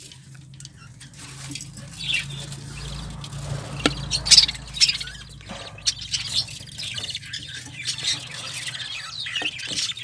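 Budgerigars chirping and squeaking, short high calls scattered throughout, with a few sharp clicks and knocks from a clay-pot nest being handled.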